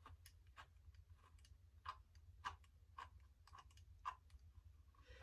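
Faint clicks, about two a second, from a ball-head driver on an extension turning the pistol-grip screw into the rifle's chassis.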